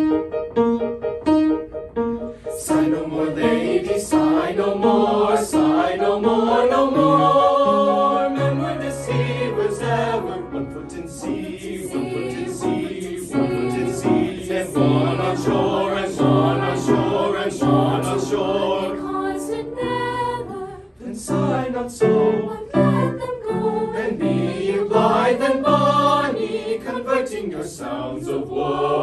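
A small mixed-voice high-school vocal ensemble singing in several parts, unaccompanied. The singing starts suddenly and carries on, with a brief drop in loudness about two-thirds of the way through.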